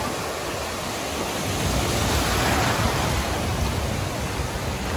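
Sea surf breaking and washing in the shallows as a steady rushing noise, with a low wind rumble on the microphone that swells in the middle.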